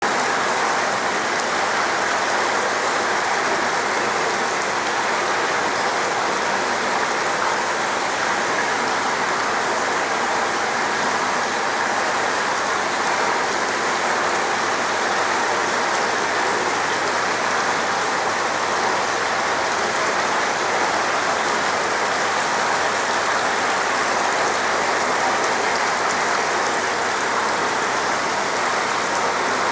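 Steady rush and splash of water in a koi holding tank, even and unbroken throughout.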